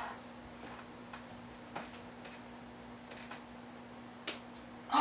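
Light footsteps on a wooden floor, a few faint clicks spaced irregularly, with one sharper click about four seconds in; a faint steady hum underneath.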